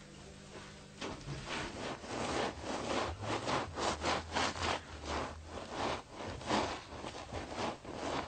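A hand tool scraping over a sheepskin in quick, even strokes, about three a second, starting about a second in: a tanner working the hide.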